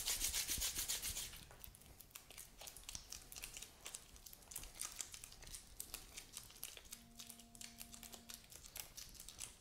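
Disposable-gloved hands kneading and rolling a lump of two-part epoxy sculpt putty: a fast, dense crinkling and rubbing of the gloves, louder for the first second or so and then softer.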